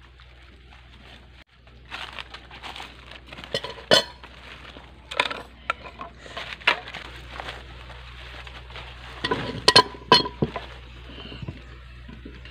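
Scattered light clinks and knocks, one or two at a time, with a sharp one about four seconds in and a quick cluster around ten seconds in.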